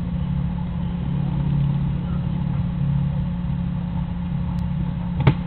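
A steady low mechanical hum, like a running motor, with one sharp click near the end.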